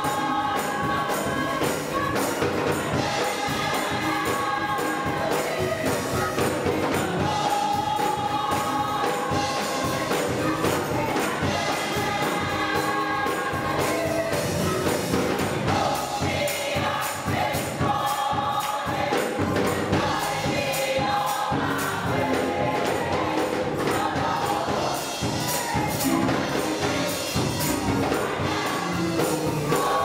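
A gospel church choir singing together in full voice over a steady, brisk tambourine beat.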